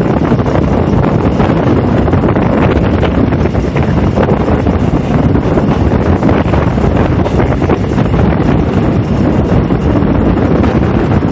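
Heavy wind buffeting the microphone at the open window of a moving passenger train, over the train's steady running rumble.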